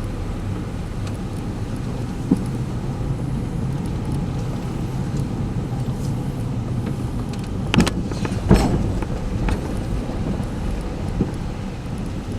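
Gale-force wind buffeting the microphone as a steady low rumble, with a few sharp knocks, the loudest two close together about two thirds of the way through.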